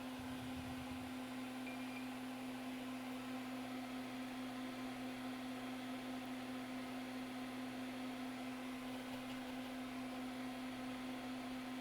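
Steady electrical hum with an even airy hiss from running repair-bench equipment, unchanging throughout.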